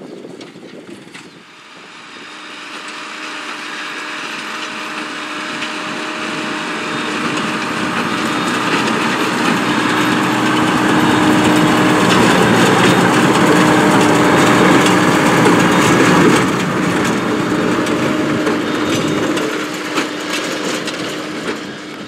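New Holland T6.175 tractor's six-cylinder diesel running under load, driving a New Holland BB940 large square baler, with a steady hum and fine rapid clatter from the working baler. The sound grows louder as the machine comes closer, is loudest as it passes, and drops off sharply about sixteen seconds in.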